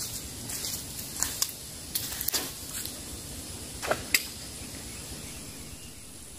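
Footsteps crunching on dry leaf litter and twigs, a handful of uneven steps over the first four seconds that then stop. A steady outdoor background with a thin high insect tone remains.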